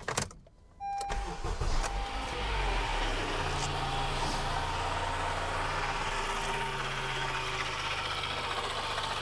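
A 2017 Honda Accord's 2.4-litre four-cylinder engine starts about a second in, revs up briefly and settles into a steady idle. The belt tensioner pulley has a bad bearing, but its noise is not that bad right now.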